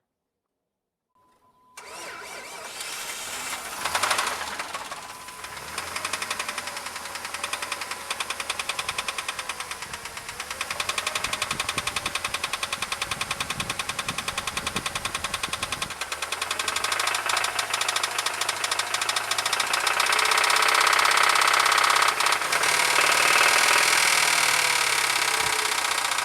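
Jeep Grand Cherokee 4.0 inline-six cranking and catching about two seconds in, then running with a fast, even ticking knock that the owner took for worn rod bearings, its oil just treated with Hyper Lube additive and high-mileage synthetic. It gets louder in the last few seconds.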